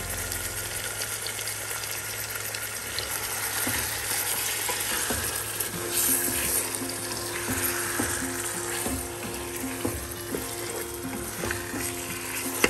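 Food sizzling as it fries in a cooking pot while being stirred, the spoon clicking and scraping against the pot now and then, with one sharp knock near the end.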